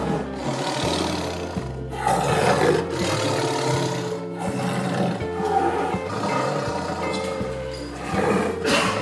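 Several loud, harsh animal roars or calls over background music with a steady bass line.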